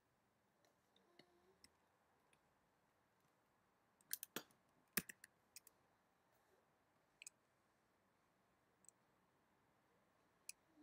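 Scattered computer mouse clicks over near silence: a quick cluster of clicks about four seconds in, the sharpest click about a second later, then a few single clicks spaced well apart.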